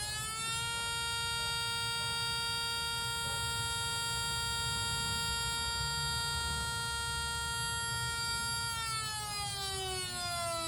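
Whelen Vortex R4 tornado siren's noon-test tone from its tone board. It finishes winding up in the first half second, holds one steady, buzzy siren pitch for about eight seconds, then winds down near the end.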